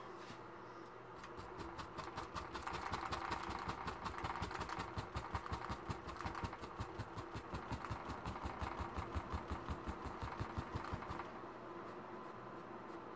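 Paintbrush scrubbing and dabbing paint onto a canvas on an easel in quick rhythmic strokes, several a second, starting about a second in and stopping about eleven seconds in.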